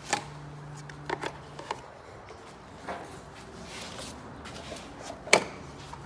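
Scattered knocks, clicks and clatter of parts being pulled off a crashed car's front end, with the loudest knock about five seconds in, over a steady low hum.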